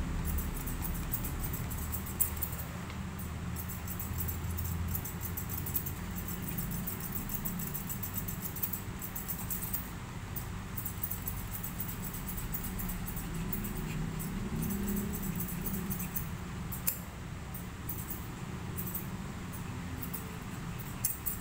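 Grooming scissors snipping a Pomeranian's fur in quick, irregular, high-pitched clicks, over a steady low hum.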